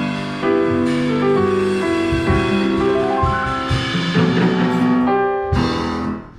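A piano trio played on self-playing acoustic instruments: a grand piano carries the melody over an upright double bass and a drum kit. The music dips briefly in loudness near the end.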